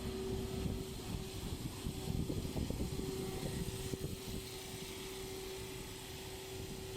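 A motor running with a steady hum, with uneven low rumbling over the first four seconds or so that then settles.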